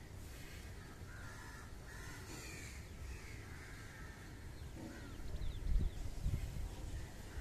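Crows cawing repeatedly, several calls in the first three seconds and another about five seconds in, over a low rumbling noise that grows louder in the second half.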